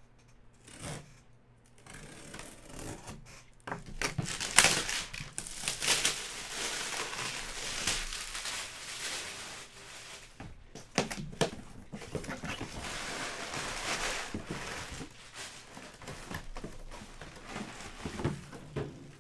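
Cardboard box being opened and handled: scraping and rustling of cardboard and packing material with scattered knocks, the sharpest about four and a half seconds in.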